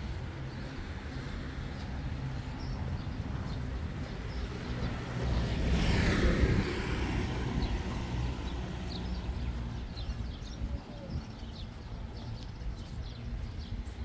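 Road traffic, with one vehicle passing close by about six seconds in, its noise swelling and then fading.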